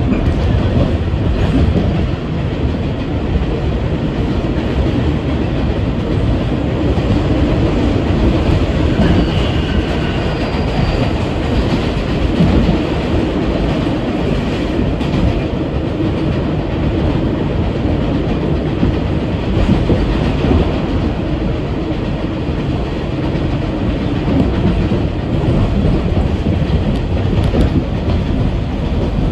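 R62A subway car in motion, a loud steady rumble of wheels on rail heard from inside the car. A few faint high tones show up about nine to eleven seconds in.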